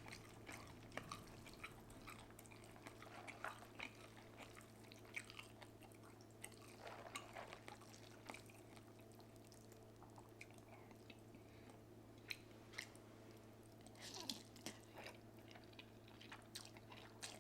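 Faint chewing with soft mouth clicks and smacks, a person eating, over a steady low hum.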